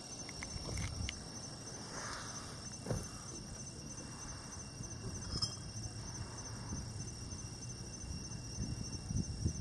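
Insects chirping in a steady, high pulsing trill over a low background rumble, with a couple of faint knocks.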